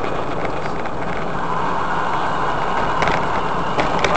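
Steady road and engine noise inside a moving Toyota MR2, picked up by the dashcam.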